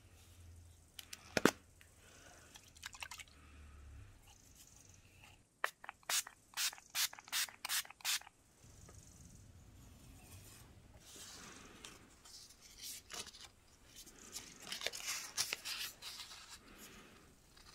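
A finger-pump spray bottle misting water onto a Damascus cleaver blade in a quick run of about seven spritzes, with a sharp click near the start. Later comes rustling and rubbing as #2000 wet-sanding paper is handled and wrapped around a sanding block.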